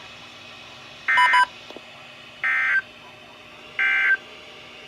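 Three short bursts of NOAA Weather Radio SAME digital data tones, each about a third of a second long and about a second and a half apart: the end-of-message signal that closes an emergency alert broadcast.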